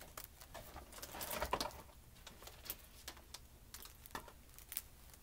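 Light handling noise: scattered small clicks and soft rustling as items are picked up and moved about by hand, busiest about a second in.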